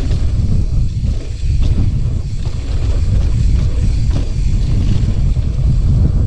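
Wind buffeting the microphone of a mountain biker riding down a dirt trail: a heavy, steady low rumble with scattered faint rattles.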